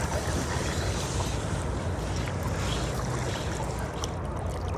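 Steady rush of river water, with a low wind rumble on the microphone.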